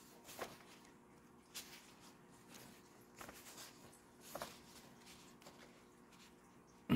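Quiet room tone with a faint steady hum and a few soft, scattered rustling noises, then a brief, louder low sound right at the end.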